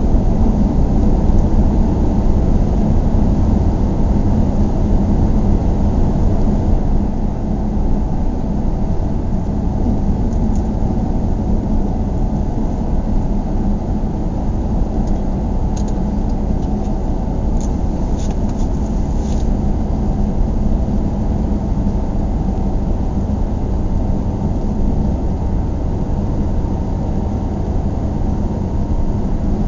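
A car driving at a steady cruising speed, heard from inside the cabin: a steady low rumble of road and engine noise with a constant hum. A few faint ticks come about halfway through.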